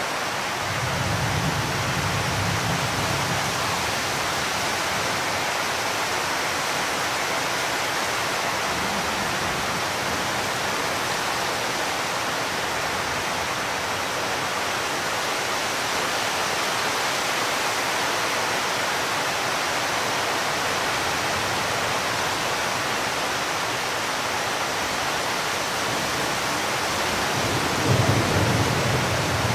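Heavy rain falling in a steady hiss during a thunderstorm, with low rumbles of thunder about a second in and again near the end.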